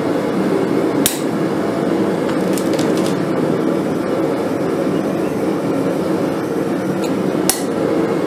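Two sharp hammer strikes on a small hand punch against the steel of a forged scorpion on the anvil, punching its eyes: one about a second in, the other near the end, over a steady hum.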